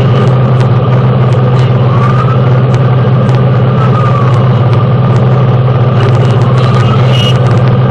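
Fire engine on the move, heard inside the cab as a loud, steady low drone. Over it a siren wails faintly, its pitch slowly rising and falling, with scattered rattling clicks.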